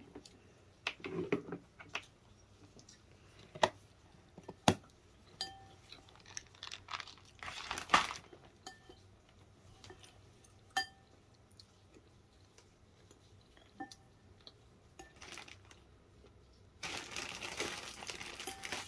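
Metal spoon clinking and scraping in a ceramic bowl during a meal: scattered small knocks and clicks, a few with a short ring. Near the end, about two seconds of crinkling rustle.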